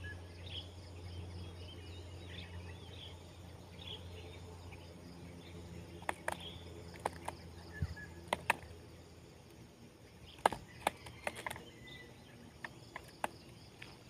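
Sharp, scattered clicks and taps from hands working a netted myna free of a nylon mist net, loudest in the second half. Under them are a steady low rumble and faint chirping of insects and birds.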